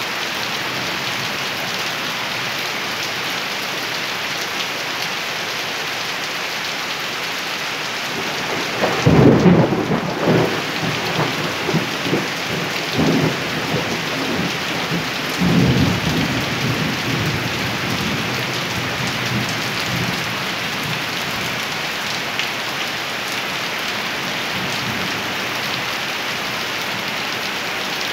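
Steady rain hissing down, with a clap of thunder about nine seconds in that rolls on in several rumbles for about ten seconds before fading back into the rain.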